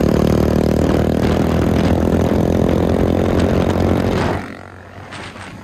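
Motorcycle engine running loud and steady while riding, through an aftermarket exhaust with its dB killer removed, so the exhaust is straight free-flow. The engine sound falls away about four seconds in.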